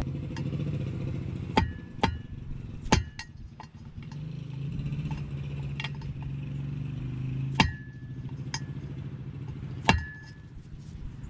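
Sharp metal clinks, about eight at irregular intervals, as a steel tool is worked against the propeller hub to bend the tab washer's tabs over the prop nut. A steady low motor drone runs underneath and fades near the end.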